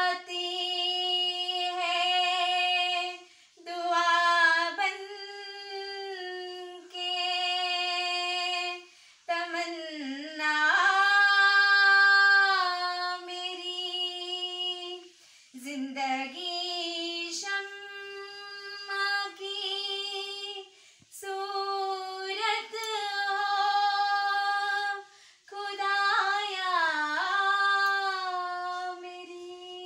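A woman singing solo and unaccompanied, in long held notes separated by short breaths, with sliding, ornamented turns between pitches.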